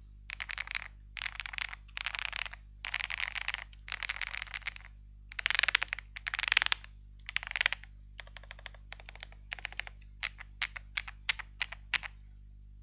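Ajazz 820 Max mechanical keyboard with Gift switches and stock stabilizers being typed on fast in short bursts, giving a creamy key sound. The loudest flurries come about halfway through, and the typing stops about a second before the end.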